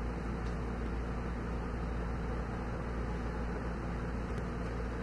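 Steady low hum and rush of air from a running room air conditioner.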